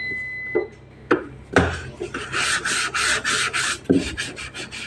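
Scrubbing strokes on the inside wall of a refrigerator as cleaning liquid is rubbed in: a quick, even back-and-forth rub, about four or five strokes a second, for about two seconds in the middle, with a few knocks around it.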